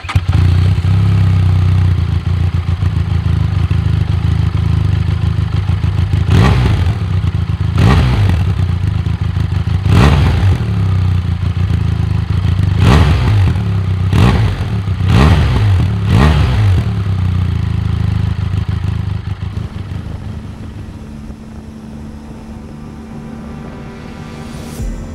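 Benelli TRK 502X's 499 cc inline-twin idling through its stock exhaust, then blipped about seven times, each rev rising and falling quickly, before it settles to a quieter steady sound near the end.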